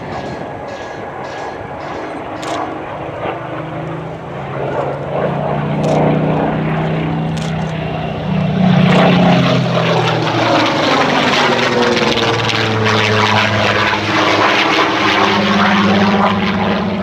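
Supermarine Spitfire Mk XIX's Rolls-Royce Griffon V12 engine and propeller on a display pass. The engine note swells over the first few seconds, is loudest about nine seconds in, and then drops in pitch as the plane goes by.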